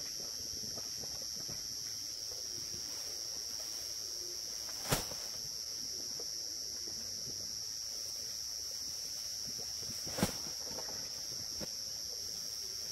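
Steady high-pitched insect chorus, with two sharp knocks about five seconds apart, the first about five seconds in.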